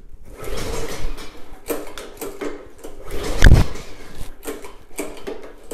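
Pull-starting a Tecumseh VLV55 mower engine: the recoil starter rope yanked several times, the strongest pull about three and a half seconds in, with the engine turning over but not catching.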